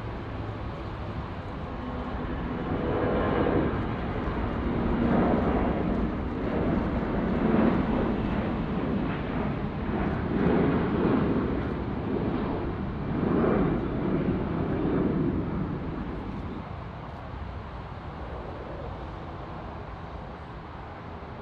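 Jet airliner passing, its engine noise swelling over a couple of seconds, holding loud and wavering for about twelve seconds, then fading away.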